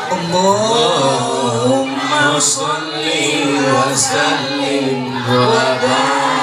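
Voices singing a shalawat, an Arabic devotional song to the Prophet, as one melody line in long notes that glide up and down.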